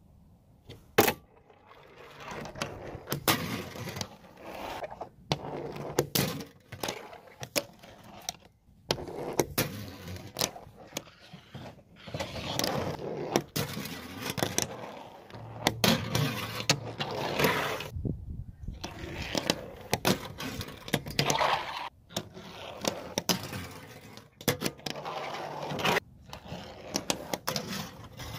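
A fingerboard's tiny urethane wheels rolling over plastic sign-board ramps and ledges, in runs of a second or two. Between the runs come sharp clacks of the board popping and landing, and scrapes as it slides along the ledges and rail. The pattern repeats many times.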